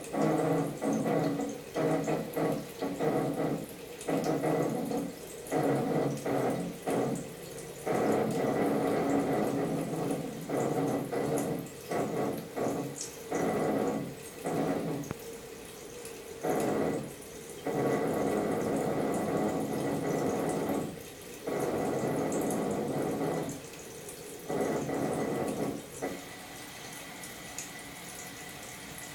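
Toilet refilling after a flush, giving a low pitched moaning drone that cuts in and out in irregular stuttering bursts, some brief and some two to three seconds long, over a quieter rush of water between them.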